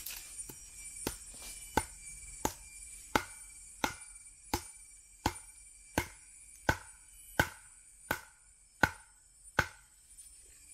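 A steady series of sharp knocks, about fourteen of them, roughly one every 0.7 seconds, each with a brief ring, over a constant high-pitched hum.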